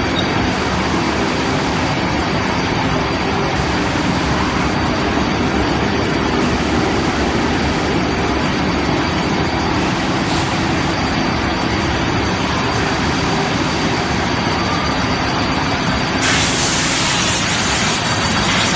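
Rotogravure printing and slitting machine running: a steady, loud mechanical din of rollers and drives with a thin steady high whine. About sixteen seconds in, a louder hiss joins in and holds.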